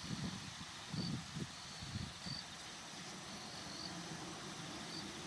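Insects chirping outdoors: short, high chirps repeating about once a second. Soft low knocks and rustles come in the first couple of seconds, and a faint steady low hum runs under the later part.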